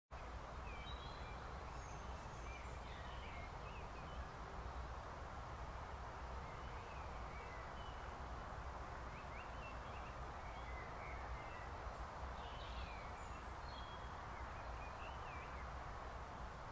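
Faint chirping and twittering of small songbirds, short calls scattered throughout, over a steady hiss and low rumble of outdoor background noise.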